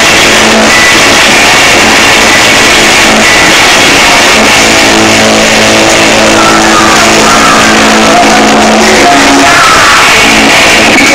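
Loud live rock music from a band led by electric guitar, played steadily, with held low notes through the middle.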